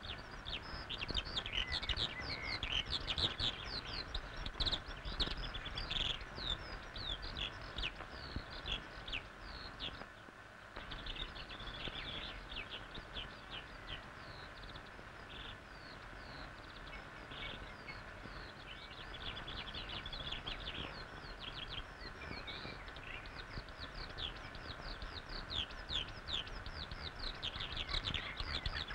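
Small birds chirping, a dense run of short, quick notes that goes on almost without a break and thins out briefly about a third of the way in, over a steady low hiss and rumble.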